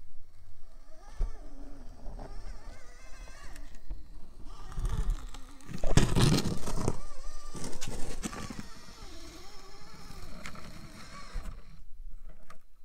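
Traxxas TRX-4M mini RC crawler working over rocks: its small electric motor and gearbox whine, rising and falling in pitch with the throttle, over scraping and knocking of tyres and chassis on rock. The scraping and knocking are loudest about six seconds in.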